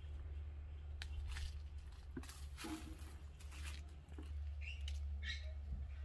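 Rose bush leaves and stems rustling, with several short snaps as roses are picked, over a steady low rumble; a few short high chirps about five seconds in.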